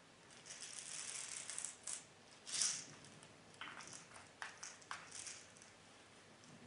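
Small plastic airsoft BBs rattling out of a tilted plastic dispenser bottle, with a louder rush of them about two and a half seconds in, then a few separate clicks as single BBs drop.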